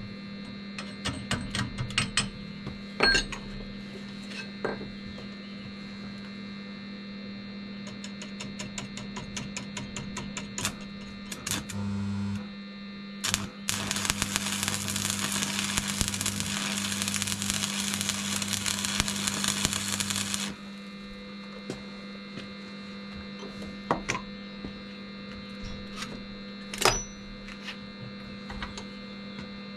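Arc welder humming steadily, with scattered taps and clicks in the first half, then about seven seconds of dense arc-welding crackle and hiss that cuts off suddenly near the two-thirds mark, as a weld is run on steel window bars.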